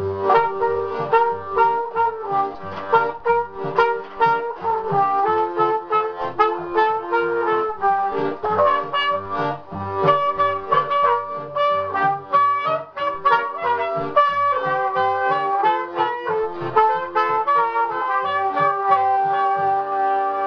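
Brass-band music, a trumpet leading over a steady bouncing bass line, settling into a held chord near the end.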